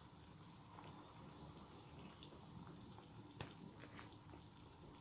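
Pot of fish curry simmering on the hob: a faint steady hiss with small pops and bubbles, and one sharper click about three and a half seconds in.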